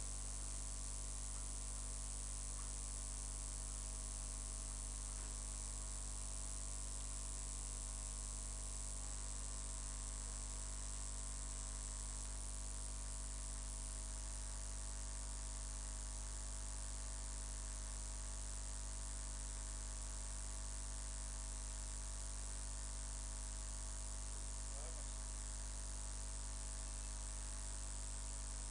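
Steady low electrical mains hum with a constant high hiss, unchanging throughout.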